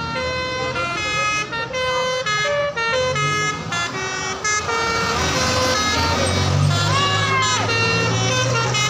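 Bus telolet horn (Basuri-type multi-tone horn) playing a quick tune of short, changing notes, with the bus's engine running underneath.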